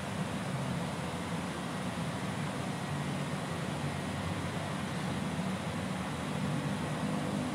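Steady low background rumble and hiss, with no distinct calls or knocks.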